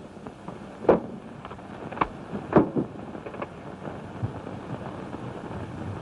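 Steady hiss and crackle of an early-1930s film soundtrack, with a few short thumps about a second and two and a half seconds in.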